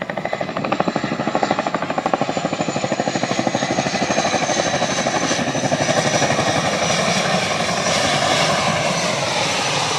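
Boeing CH-47 Chinook tandem-rotor helicopter flying close, with a fast chopping rotor beat over a high turbine whine. In the last few seconds the whine's pitch drops slightly as the beat smooths out.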